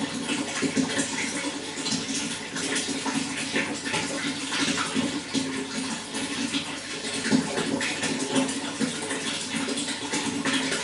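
Running water flowing and splashing steadily, with many small irregular splashes.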